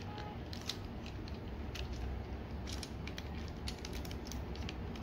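Scattered small plastic clicks from a Transformers Masterpiece MP-26 Road Rage figure's parts and joints as the rear of the toy car is split apart during transformation.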